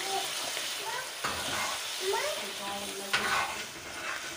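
Chicken pieces in a tomato masala sizzling in a non-stick pan on high heat as a spatula stirs them, with two sharp knocks of the spatula against the pan, about a second in and about three seconds in. The sizzle is the liquid being cooked off.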